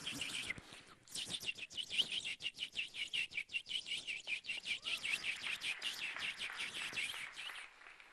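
Bird-like chirping imitated by a mimicry artist: a fast, even run of short high chirps, about five or six a second, with a brief break just before a second in, stopping shortly before the end.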